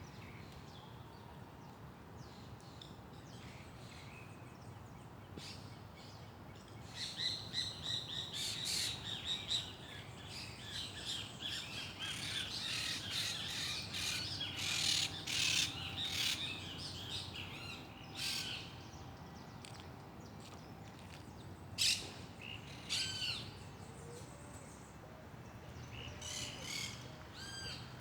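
Several birds chirping and calling in quick overlapping bursts, busiest through the middle, with one sharp loud call later on, over a steady low background hum.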